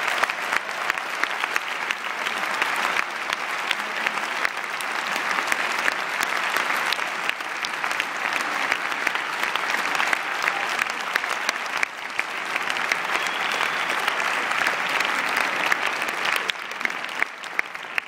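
A large audience clapping in a steady, dense applause that thins out near the end.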